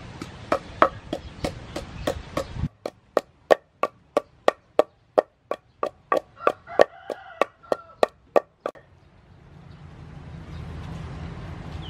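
Wooden pestle pounding chilies in a mortar: steady, even knocks about three a second, stopping about nine seconds in.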